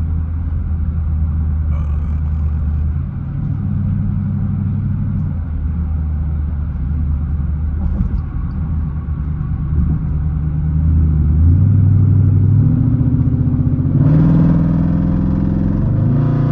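Hemi V8 in a Jeep fitted with a K&N cold air intake, accelerating hard: the engine note climbs in steps with drops between as it shifts through the gears, getting louder about twelve seconds in, with a rush of intake and wind noise joining near the end.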